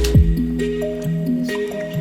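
Background music: held notes over a deep bass that slides down in pitch near the start, with a beat.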